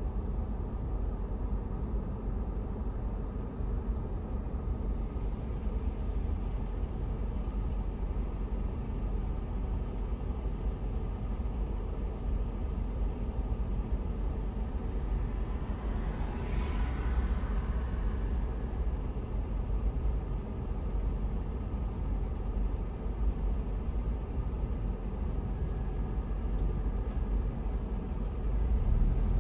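Low, steady rumble of a car waiting in stopped traffic, heard from inside the car, with another vehicle passing by about halfway through.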